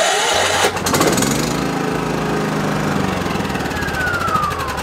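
Firman 3650-watt remote-start portable gasoline generator starting: a click, then the engine cranks, catches and runs up to speed, settling into a steady run. A tone glides downward near the end.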